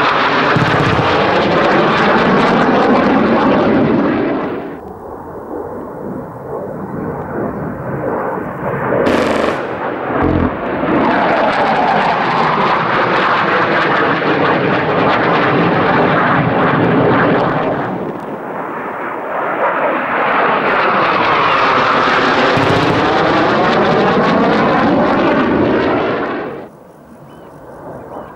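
Jet noise of a Panavia Tornado GR4 flying past, a loud roar with a sweeping, swishing character that swells and fades three times, then cuts off suddenly near the end.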